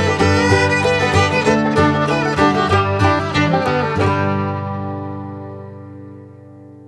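Bluegrass-style background music with banjo and fiddle, ending about four seconds in on a held final chord that fades out.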